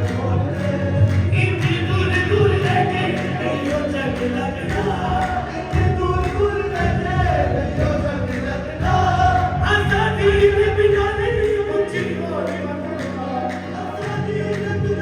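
Live qawwali: several voices singing together over a steady beat of percussion.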